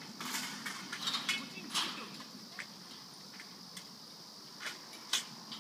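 A steady high insect drone of summer, with scattered short sharp knocks and clacks, about ten of them and irregularly spaced, from poles and frames being handled and set down; faint distant voices under it.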